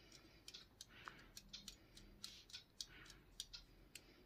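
Faint, irregular small clicks and ticks of a plastic plotter pen tool and its cap being handled in the fingers.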